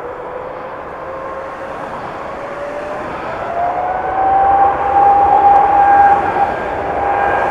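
Jet airliner's engines running at high power during takeoff, growing louder, with a whine that rises in pitch about three seconds in over a steady rushing noise.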